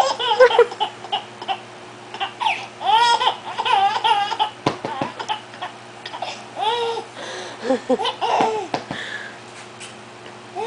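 A baby laughing in repeated bursts of giggles and belly laughs, with short breaks between them.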